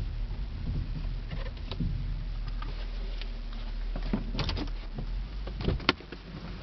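Steady low rumble of road and engine noise inside the cabin of a 2008 Buick Lucerne CX driving at highway speed. A few sharp clicks and knocks come through, the loudest near the end.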